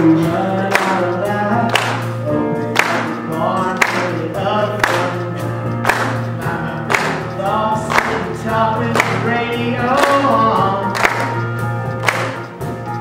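Male singer singing a country song into a microphone over musical accompaniment, with a steady beat of about one hit a second.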